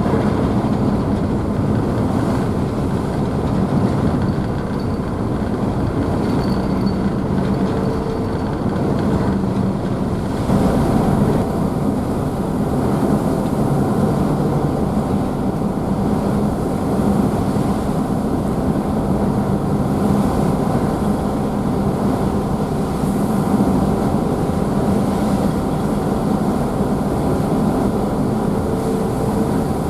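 Car ferry's engines running with a steady hum under the constant rush and splash of the wake, heard from the rear deck. A slightly louder surge of water about ten seconds in.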